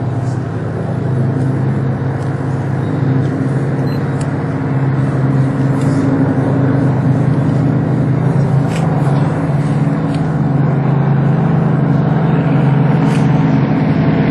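Supermarine Spitfire's piston engine and propeller droning steadily as the fighter comes in to land with its undercarriage down, growing slowly louder as it nears.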